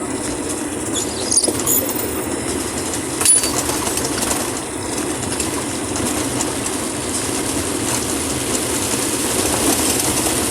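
Steady rumble and hiss of a vehicle driving on a rough, rain-soaked road in a heavy downpour, with a few sharp knocks and rattles, the loudest about three seconds in.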